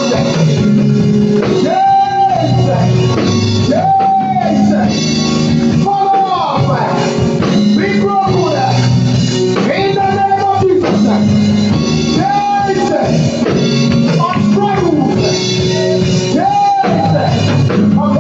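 Church band music with singing: a full band and a short melodic phrase that repeats about every two seconds.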